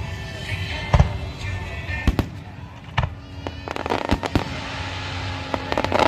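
Fireworks aerial shells bursting: a few deep booms about a second apart, then a quick run of sharp crackling reports a little past the middle, and more cracks near the end.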